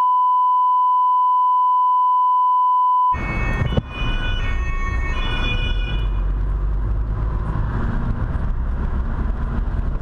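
A steady 1 kHz bleep tone for about three seconds with all other sound muted beneath it: a censor bleep laid over the audio. It cuts off to car road noise and engine rumble heard from inside the cabin, with a siren's alternating tones briefly about four to six seconds in.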